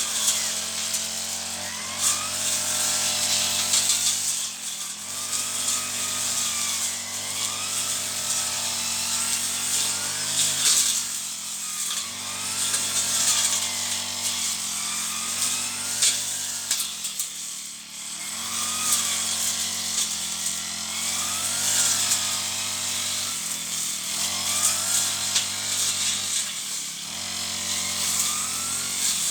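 Handheld brush cutter engine running near full throttle as it cuts weeds. Its pitch sags and recovers every few seconds as the blade meets the growth, with a few deeper dips.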